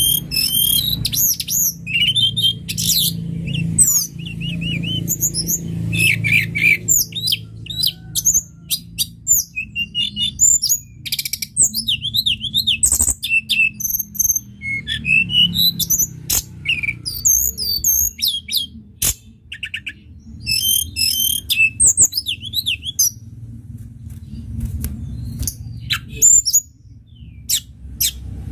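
Tledekan gunung songbird singing a fast, varied run of high chirps, twittering warbles and short trills, bird-training (masteran) song, over a steady low hum.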